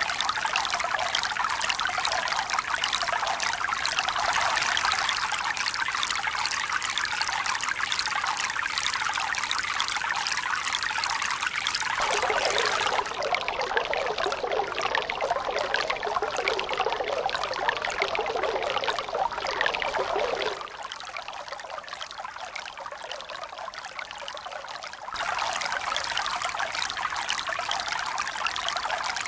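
Steady rush of flowing water with no wave rhythm. Its tone changes abruptly a few times: it turns duller a little under halfway in, drops quieter about two-thirds of the way through, and comes back fuller near the end.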